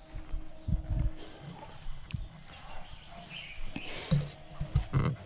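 Dull low thumps of footsteps through grass and undergrowth, with an insect calling in quick, even chirps, about eight a second, that pause midway and start again.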